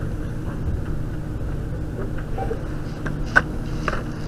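Steady low rumble and hum from a chest-worn spy-pen camera's microphone as the wearer moves, typical of clothing rubbing against the pen. A few sharp clicks come in the second half, the loudest about three and a half seconds in.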